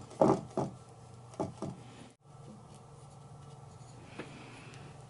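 A few short paintbrush strokes of chalk paint scratching over a textured figure, then faint steady room hum with a small click.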